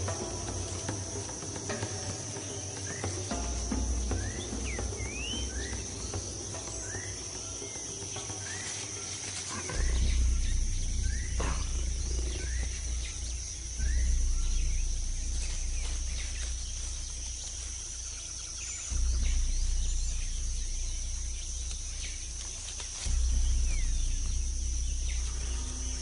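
Insect drone in tropical forest: a steady high buzz, with short rising chirps repeating through the first ten seconds. Deep low music notes swell in about ten seconds in and then three more times, each fading slowly.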